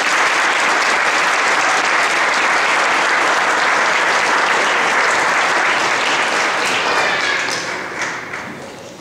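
A crowd applauding, loud and steady, dying away in the last couple of seconds.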